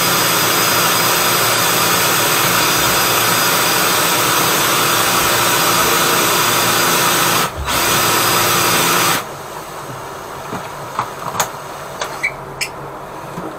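Electric drain-cleaning machine running steadily, spinning a flexible shaft fed into a blocked floor drain. It dips briefly, then stops abruptly about nine seconds in, leaving a few faint clicks.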